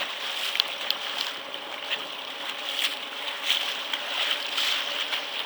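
Water splashing and lapping against a small fishing boat's hull, with a faint steady hum underneath.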